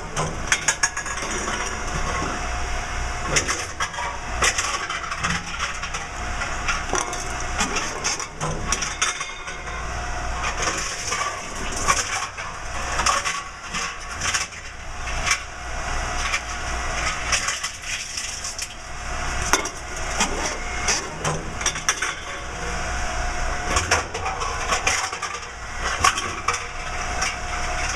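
Tomra T-53 reverse vending machine taking in aluminium cans: repeated irregular clattering and crunching of cans being carried through and dropped, over the steady running of the machine.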